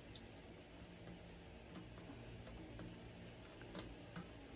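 Faint small metallic clicks and taps from hand-fitting a washer and nut onto a port of a stainless-steel distiller lid and handling the lid, with a couple of slightly louder clicks near the end.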